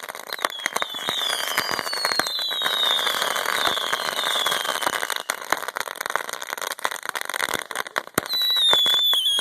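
Many fireworks going off at once: a dense, continuous crackle with repeated short whistles falling in pitch, and one louder falling whistle near the end.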